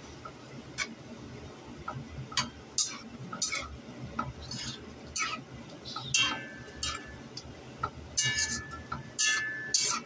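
Spatula scraping and knocking against a wok while tossing shrimp and vermicelli noodles in a stir-fry: irregular sharp clicks and scrapes, a dozen or so, some with a brief metallic ring.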